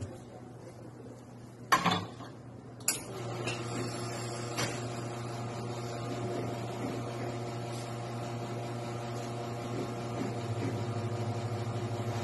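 A sharp knock about two seconds in and a click a second later, then an espresso machine's pump hums steadily as a shot is pulled into a cup.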